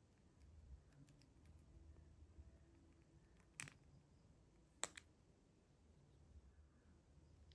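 Sharp plastic clicks as a Galaxy Buds FE earbud's shell is prised open along its seam: one click about three and a half seconds in, then two close together about a second later, over faint handling rubs.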